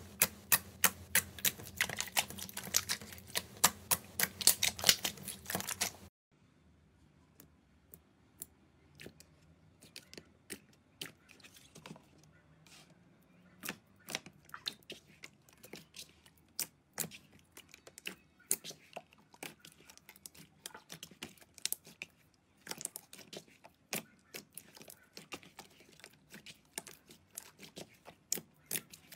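Hands pressing and kneading slime, making rapid small clicking pops as air pockets burst. The popping is dense and loud for about the first six seconds, then drops suddenly to quieter, scattered clicks.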